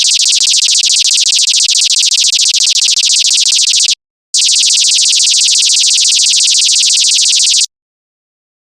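Electronic stun-gun or laser-gun zapping effect: a high-pitched, rapidly pulsing buzz sounding twice, about four seconds, then a brief gap and about three and a half seconds more, each cutting off abruptly.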